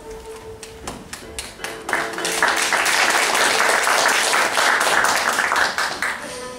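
Audience applause: a few scattered claps about a second in build into full, steady clapping that stops shortly before the end. A held musical note dies away at the start, and music starts again just after the clapping ends.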